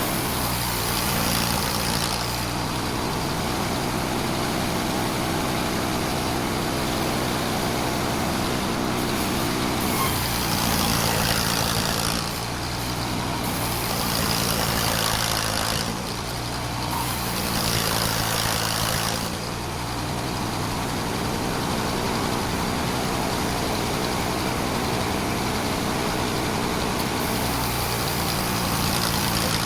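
Sawmill running steadily while it cuts sengon (albizia) logs: a constant engine drone under a harsh, hissing cutting noise. The noise dips briefly three times, around twelve, sixteen and nineteen seconds in.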